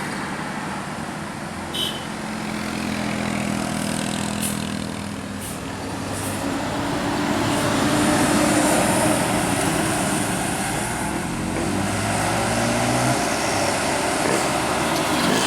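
A large bus's diesel engine running on the road amid traffic noise, growing louder about halfway through as it draws closer.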